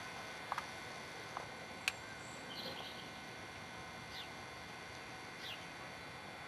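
Faint bird chirps, a few short high calls that fall in pitch, with several sharp clicks, the loudest about two seconds in, over a steady hiss.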